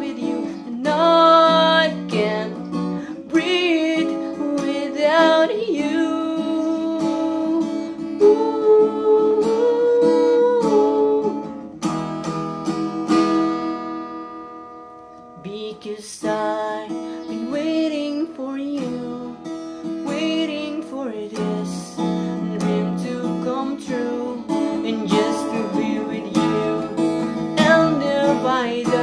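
A man singing a slow melody while strumming an acoustic guitar. About twelve seconds in, the voice stops and a chord is left ringing and fading for a few seconds, then strumming and singing pick up again.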